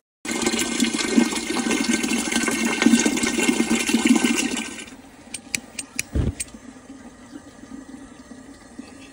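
Water pouring and splashing into a new stainless-steel pressure-cooker pot, rinsed before its first use, for about five seconds. It stops abruptly, and a few sharp clicks and a low knock follow.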